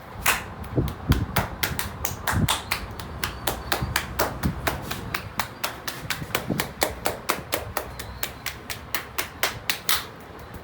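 Barber's hands striking the client rhythmically in percussive massage: rapid sharp slaps and claps, several a second, which stop near the end.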